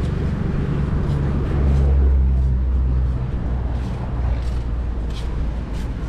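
A motor vehicle's engine passing along the street, a low rumble that swells about two seconds in and then slowly fades.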